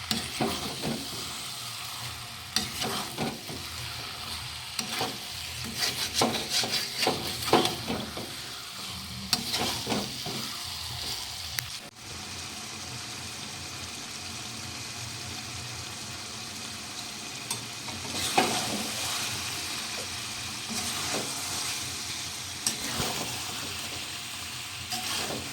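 Chicken pieces sizzling as they fry in oil and spice paste in a pan, with a spatula scraping and knocking against the pan as the meat is stirred. The meat is being slow-fried (kosha) and is starting to release its oil. The stirring is busiest in the first half, and the sizzle runs steadier after that.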